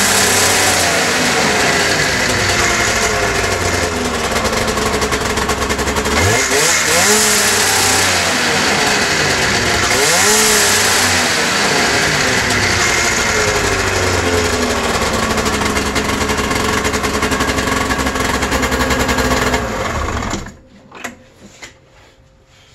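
2002 Arctic Cat ZR 600 EFI snowmobile's two-stroke twin running, revved up and back down several times, then shut off about 20 seconds in. The engine has a bog above about 6,000 rpm that the owner is tracing to its power valves.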